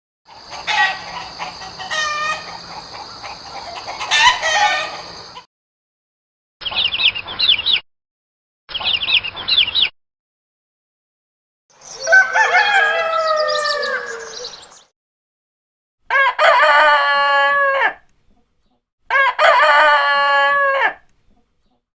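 A series of separate chicken recordings with silent gaps between them: a few seconds of hens clucking and calling, two short bursts of high-pitched calls, then roosters crowing, the last two crows about two seconds each.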